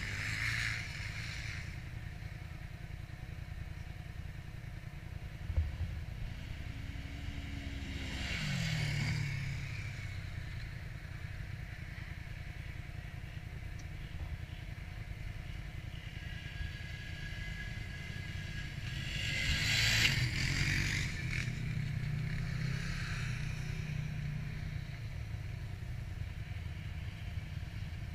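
Quad bike (ATV) engines idling with a steady low rumble, with a quad revving up twice, once about a third of the way in with a falling pitch and once louder about two-thirds of the way in. A single knock comes a few seconds in.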